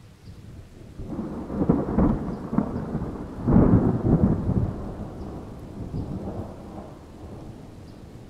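A long roll of thunder with rain falling. It swells about a second in, peaks twice, around two seconds and again around four, then rumbles away.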